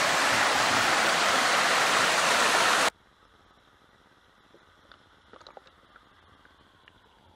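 Rushing creek water, loud and steady, that cuts off abruptly about three seconds in. What follows is much quieter, with scattered faint ticks and taps, as heard from an action camera sealed in its waterproof case underwater.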